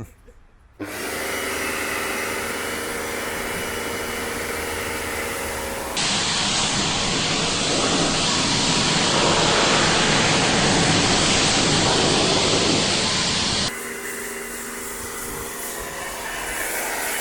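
A motor-driven machine running steadily with a hissing rush and a faint hum, in three cut-together stretches; the middle one, about six seconds in, is louder and hissier.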